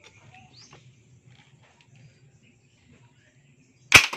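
A single sharp shot from a homemade PVC pump air gun (toy gun) about four seconds in, after a few seconds of faint background.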